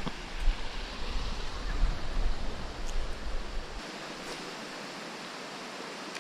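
Steady rush of a creek's rapids, with a low, uneven buffeting rumble on the microphone for the first four seconds or so.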